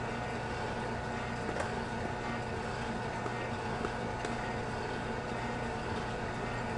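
Hottop coffee roaster running with a steady mechanical hum from its motor and fan, with a couple of faint sharp pops from the beans as first crack begins.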